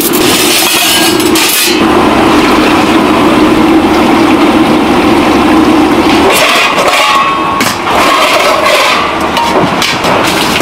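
Stainless steel ladles and utensils clinking as they are handled, over a steady low hum. About six seconds in, water is poured from a ladle into a large pot. Near the end, stainless bowls clatter as they are stacked.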